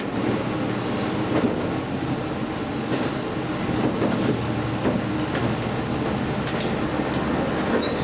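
Diesel limited-express railcar running along the track, heard from inside the front car. A steady rumble is broken by irregular clicks and clunks as the wheels pass over rail joints and points.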